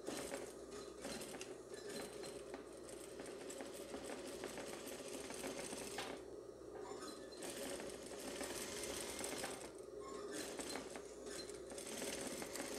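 Domestic-style sewing machine running, sewing an understitch close to the edge of the seam. It stitches in steady runs with brief pauses about halfway through and again a few seconds later.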